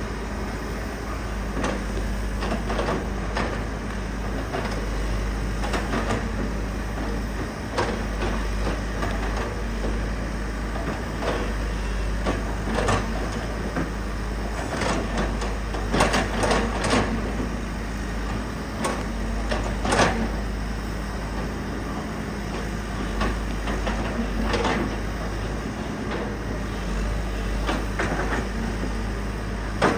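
Excavator diesel engine running steadily while the machine works, with irregular clanks and knocks of the bucket and tracks against debris, a cluster of louder ones about halfway through.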